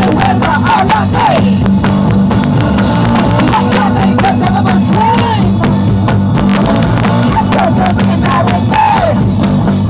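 Live punk blues rock band playing loud: electric guitar and drums, with a woman singing, heard from the audience.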